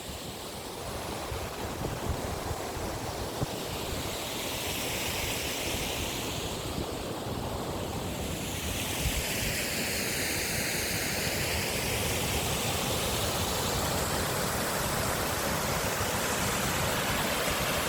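Waterfall: a steady rush of falling water, growing gradually a little louder.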